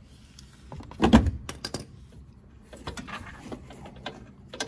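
Metal hand tools working on a car's front tension arm bolt: a loud clank about a second in, then a quick run of sharp clicks and scattered lighter ticks and taps as the bolt is loosened.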